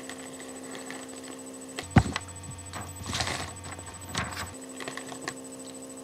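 Handling noises close to the microphone: one sharp knock about two seconds in, then short rustling sounds, over a steady low electrical hum.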